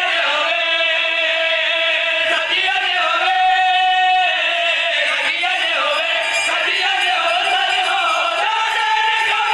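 A group of men chanting a qaseeda, a devotional poem, together in a call-and-response style, with a long held note about halfway through.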